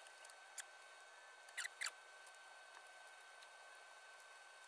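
Near silence, broken by a few short squeaks: one about half a second in, and two close together, each falling in pitch, near the two-second mark.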